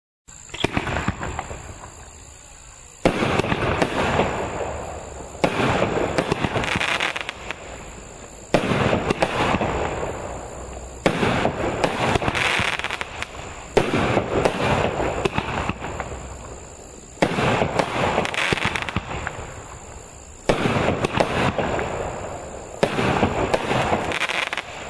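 Cosmic Fireworks Neutron Bomb 16-shot barrage cake firing shot after shot, about every two to three seconds. Each shot is a sudden bang followed by a couple of seconds of crackling that fades.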